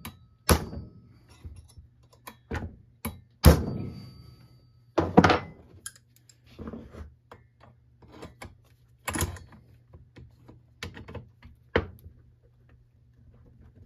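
Hammer tapping a pin punch against the ears of a string trimmer's clutch to break the tight clutch loose on its shaft. Several sharp metal taps come in the first five seconds, one with a brief ring after it, followed by lighter scattered clicks and a couple more knocks as the clutch is worked off.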